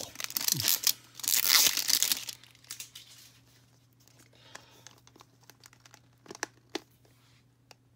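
Plastic wrap being torn and crinkled off a plastic toy capsule ball, loud for about the first two and a half seconds. After that come scattered small clicks and crackles as fingers work at the ball's seam.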